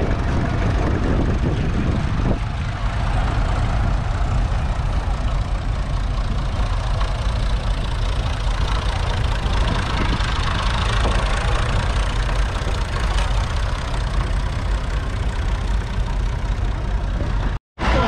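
Tractor engine running steadily with a deep rumble, cutting out abruptly for a split second near the end.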